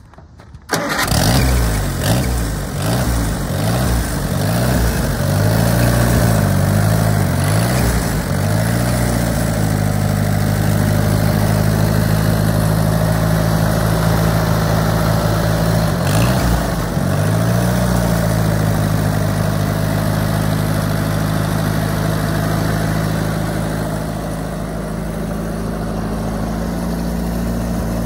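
Allis-Chalmers D15 tractor engine starting up about a second in. It is revved up and down several times before settling to a steady idle, with one more brief rev and return to idle partway through.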